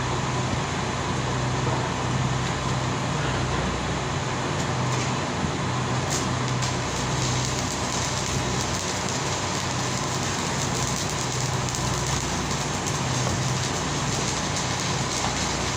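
Steady mechanical noise with a low hum underneath, running without a break.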